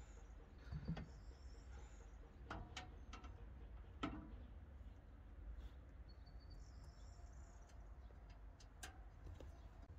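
Near silence broken by a few faint clicks and knocks of metal parts being fitted: the hinges of a rotary tiller's rear guard cover being worked in between their rubber bushings. Faint birdsong chirps in the background.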